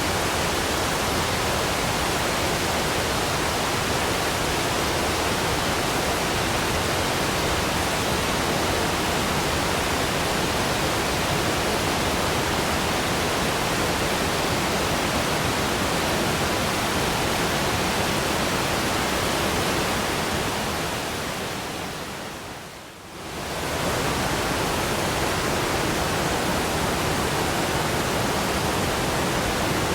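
Waterfall rushing in a steady, even roar of water noise. About three-quarters of the way through it fades down briefly and swells straight back up.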